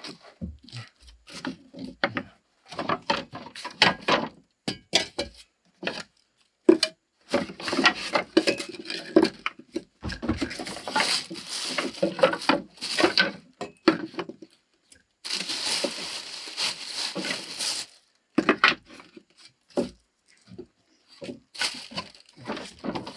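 Thin wooden boards and offcuts clattering and scraping as they are rummaged through and shifted by hand on a plank floor: irregular knocks and clicks, with a longer scraping rustle about two-thirds of the way through.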